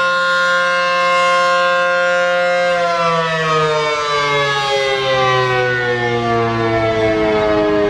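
ACA P-15 outdoor warning siren sounding a steady, loud alert tone, then winding down from about three seconds in, its pitch falling steadily as the alert ends.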